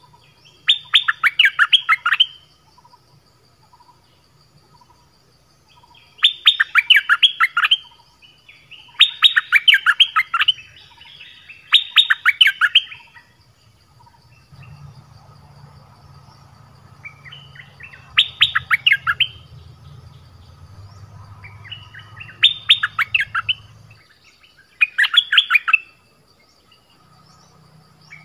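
Nok dok taeng songbirds in a decoy trap cage singing. About seven short, rapid, bubbly phrases of quick notes come every few seconds. A faint low rumble underlies the middle stretch.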